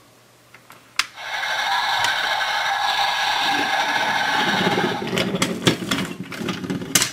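Wooden toy train and wagon rolling through a wooden railway crossing platform, pushing its gates aside: a sharp click about a second in, then a steady rolling rush for about four seconds, turning into a lower rattling clatter with several knocks near the end.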